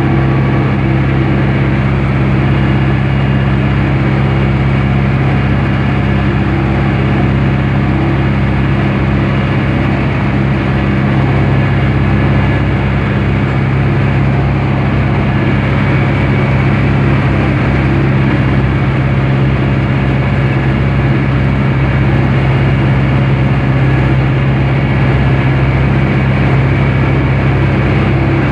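Universal 651 tractor's four-cylinder diesel engine running steadily, heard from inside the cab.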